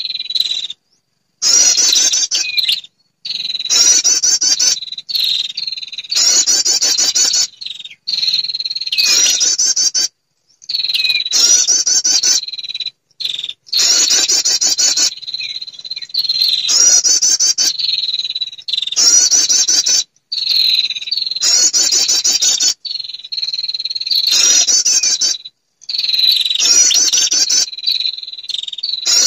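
Female prinia (perenjak) calls played as a bird-trapping lure. Fast, buzzy trilled phrases about a second long repeat every couple of seconds with short breaks, over a steady high tone.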